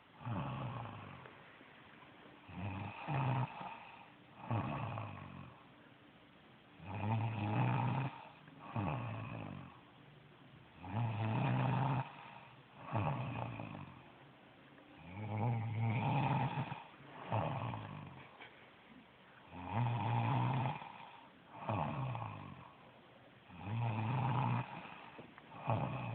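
A woman snoring in her sleep in a steady rhythm. Each cycle is a louder snore followed about a second and a half later by a shorter, weaker one, repeating roughly every four seconds.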